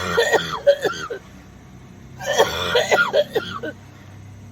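A woman coughing and clearing her throat in two bouts, the second about two seconds after the first: a coughing fit that she says talking sets off, with her voice gone hoarse for weeks.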